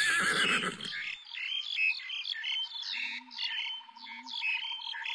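Rapid, high chirping calls of small animals, a few each second, over a faint steady high tone, with two soft low calls near the middle.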